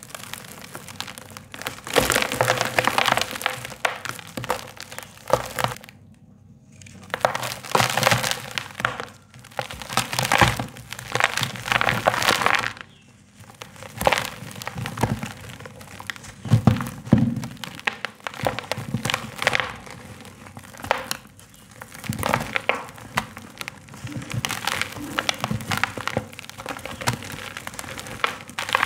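Dry sand-cement chunks crunching and crumbling as hands squeeze and break them apart, a dense, irregular crackle in bursts with a couple of short pauses; the crumbled grit sifts and pours through the fingers.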